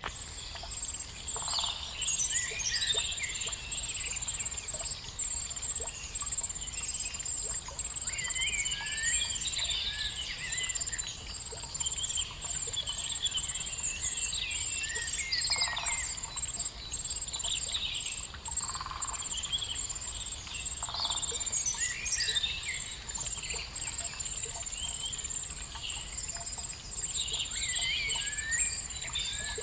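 Songbirds singing: clusters of quick, varied whistled and chirped phrases every few seconds over a faint outdoor background, with a high, rapidly pulsing tone throughout.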